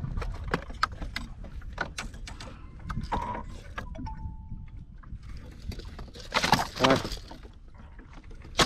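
Irregular knocks and taps of handling in a wooden boat. About six and a half seconds in comes a short, loud, voice-like grunt.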